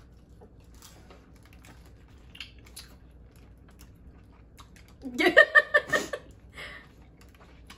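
Faint scattered clicks and crackles of hands peeling shellfish from a seafood boil. About five seconds in, a loud burst of laughter, a quick run of pulsing 'ha's lasting about a second.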